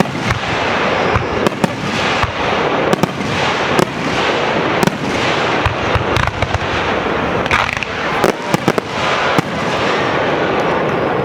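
Aerial fireworks display: many shells bursting in quick succession, overlapping booms and sharp cracks with no pause between them.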